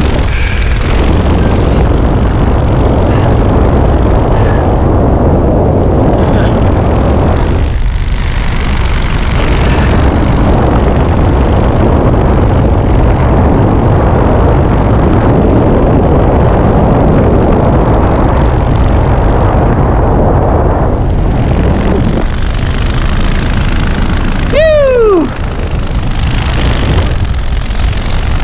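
Loud, steady wind rush buffeting a helmet camera's microphone during wingsuit flight and canopy descent. Near the end, a brief tone slides down in pitch.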